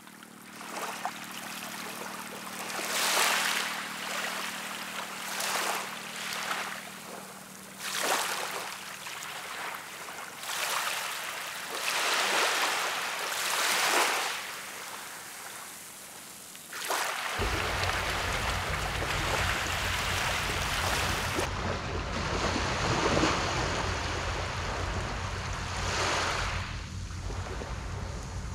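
Sea waves breaking and washing up a beach in irregular surges every few seconds. About two-thirds of the way through, this gives way suddenly to a steady rushing noise with a deep rumble.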